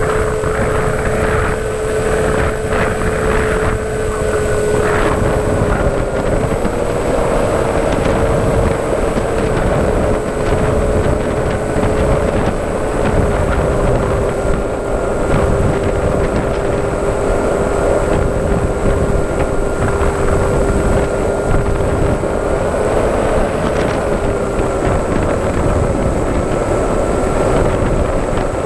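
Electric motor and propeller of a radio-controlled FPV model aircraft running steadily: a constant whine whose pitch drifts slightly up and down with the throttle, over rushing wind on the microphone.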